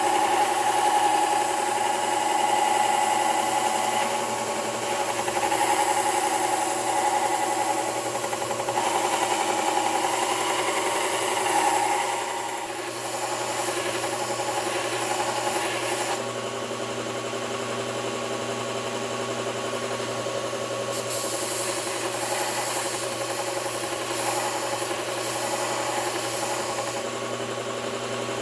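Belt sharpener running with a steady motor hum while a steel chisel's bevel is ground against the abrasive belt; the grinding rasp is heavier for the first twelve seconds or so, then lighter as the motor runs on.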